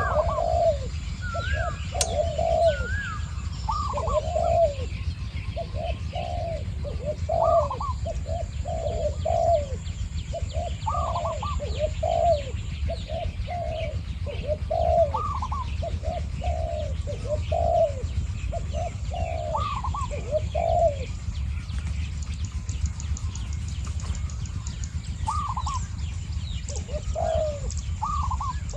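Spotted doves cooing back and forth, a wild male answering a decoy, phrase after phrase with a short lull a little past the middle. A steady low rumble runs underneath.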